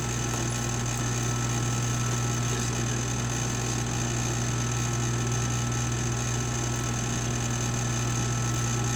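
Steady electric motor hum from a sewing machine's motor left running, with no stitching strokes.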